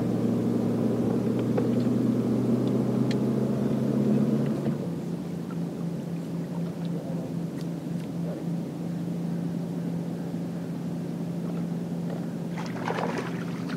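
A boat motor running steadily: a low hum of a few steady tones, louder for about the first five seconds, then settling quieter.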